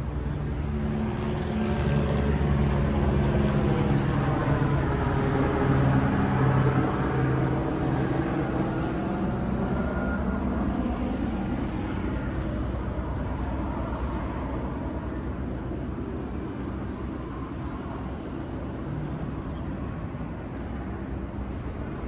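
A large engine passing: a steady low hum with a sweeping hiss over it, swelling to its loudest about six seconds in and then slowly fading.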